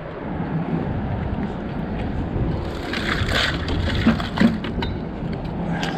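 Wind noise on the microphone over lapping water, with a crackling scrape about three seconds in and two sharp knocks shortly after.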